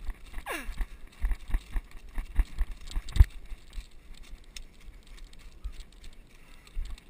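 Bicycle rattling and jolting as it is ridden over railroad ties and ballast, with irregular knocks; the hardest bump comes about three seconds in and the rattling eases after about four seconds.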